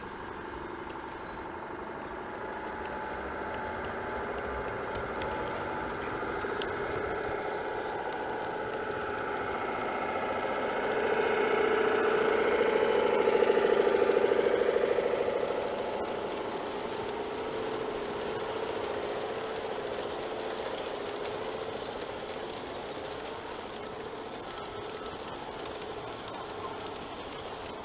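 Large-scale garden-railway model train running on outdoor track. The motor and gears whine steadily and the wheels rattle over the rails. The sound swells to its loudest about halfway through as the locomotive passes close, then settles to a steadier rolling as the string of freight cars goes by.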